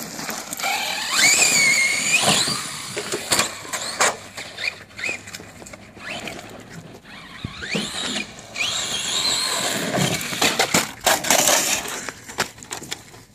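Brushless electric motor of a DHK Zombie 8E RC truck whining up and down in pitch as the throttle is worked, in two spells: one about a second in and another in the second half. Scattered clicks and clatters come from the tyres on gravel and concrete.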